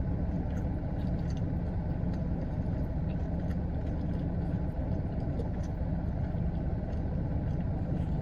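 Steady low hum of an idling vehicle engine, with faint small clicks of someone chewing a mouthful of chicken sandwich.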